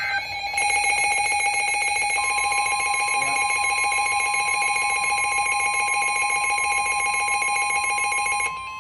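Weather radio alert: a rapidly pulsing electronic alarm sounds from about half a second in until just before the end. The steady 1050 Hz NOAA Weather Radio warning alarm tone joins about two seconds in and holds on. Together they announce a new severe thunderstorm warning.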